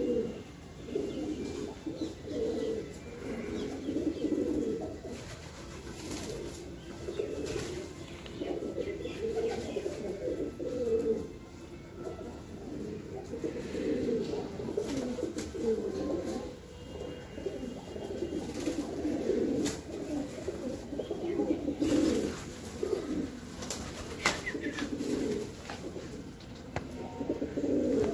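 A flock of domestic pigeons cooing, many low coos overlapping one another, with a few short sharp clicks late on.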